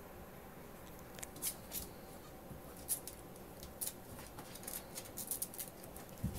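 Ferrets' claws clicking on a tiled floor as they scamper: an irregular scatter of sharp little ticks that come thicker near the end, with a single soft thump just before the end.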